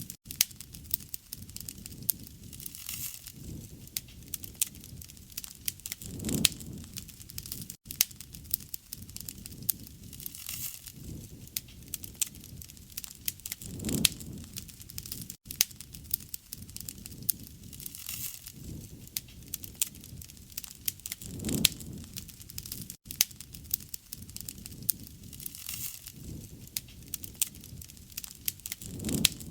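Campfire burning: a dense stream of sharp crackles and pops from the burning wood, over a soft steady hiss, with a low swell in the sound about every seven seconds.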